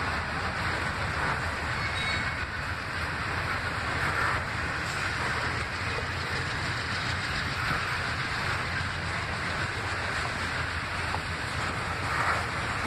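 Freight train of autorack cars rolling past: a steady rumble and rattle of steel wheels on the rails.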